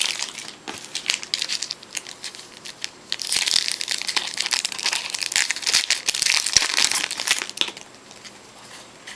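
Foil trading-card pack wrapper being torn open and crinkled, a dense crackle lasting about four seconds in the middle, with lighter rustling and clicks of cards being handled before it.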